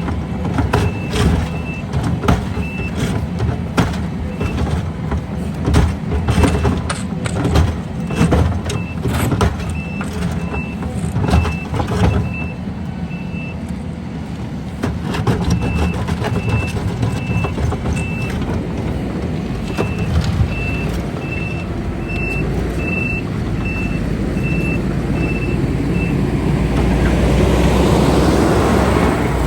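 Skid loader's diesel engine running with its reversing alarm beeping about twice a second, pausing twice and stopping near the end, with metal clanks from the working machine during the first half. Near the end an engine revs up, rising in pitch and growing louder.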